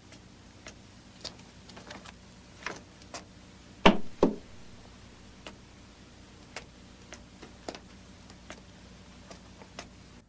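Light clatter of small objects being handled: scattered clicks and knocks, with two louder knocks close together about four seconds in, over a faint steady hum.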